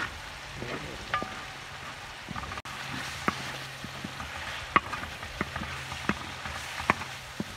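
Prawns and chicken pieces sizzling in oil in a large metal pan, stirred with a spatula that clicks and scrapes against the pan several times. A steady low hum runs underneath.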